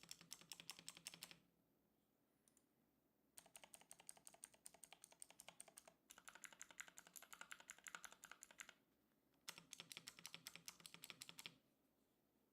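Mechanical keyboard with Outemu Gold switches being typed on: rapid key clicks in bursts of a few seconds, with short pauses between them.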